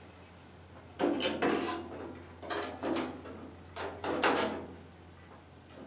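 Loose sheet-steel patch panel scraping and clattering against a truck bedside as it is handled and pushed into place, in several short bursts from about a second in.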